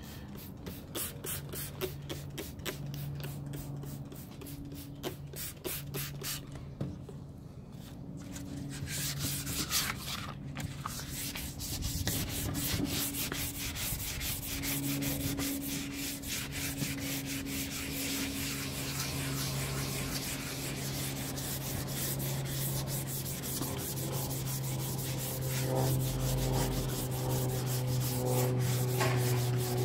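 Hand sanding with a sheet of 220-grit wet sandpaper rubbed back and forth over a painted graphic on a wetted wooden tabletop, distressing the lettering. It starts as many short separate scratches and becomes continuous rubbing after about nine seconds.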